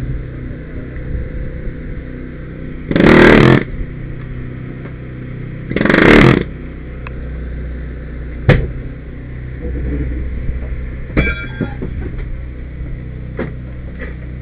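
Small engine of a hydraulic rescue tool's power unit running steadily. Over it come two loud bursts of noise, each under a second long and a few seconds apart, then a sharp knock and a brief metallic ring.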